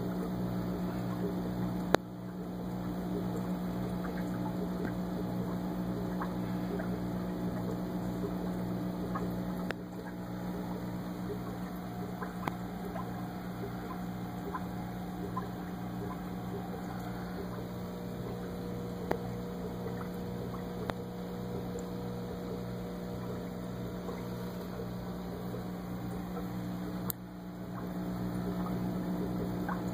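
Aquarium air pump humming steadily, with air bubbling up through the volcano bubbler ornament and small ticks of bubbles; a sharp click about two seconds in and another near the end.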